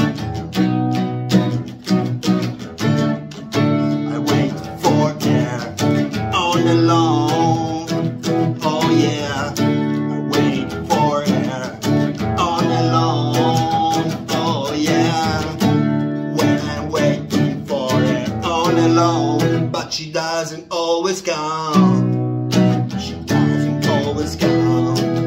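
A man singing to his own strummed acoustic guitar, played with a pick in a steady rhythm; the voice drops out briefly a little over three-quarters of the way through while the guitar carries on.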